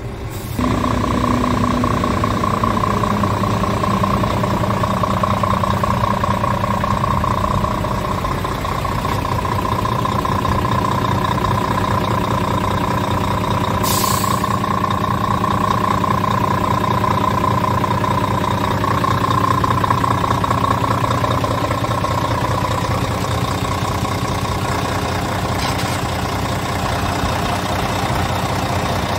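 Scania R tractor unit's diesel engine idling steadily, with a constant whine over a low rumble.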